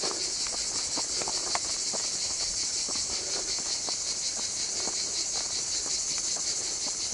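Cicadas singing: a steady, high-pitched buzz with a fast, even pulse, and a few faint clicks underneath.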